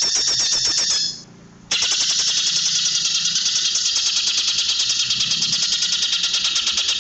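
Cucak ijo (greater green leafbird) singing a dense rapid-fire trill of sharp high repeated notes, about ten a second. A short burst breaks off about a second in, and after a brief pause an unbroken run of the same notes follows.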